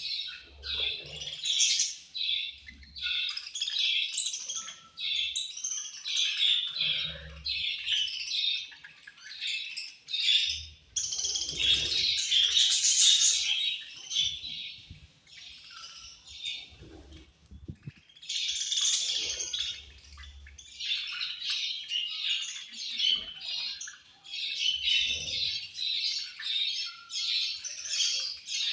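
Budgerigars chirping and chattering, many short calls overlapping without pause, with a louder, denser burst a little before the middle and two short lulls.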